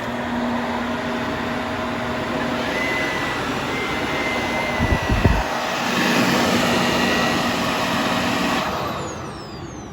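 Shark Powered Lift-Away upright vacuum (ZU632) switched on and running steadily, with a brief low thump about five seconds in. Near the end it is switched off and the motor winds down with a falling whine.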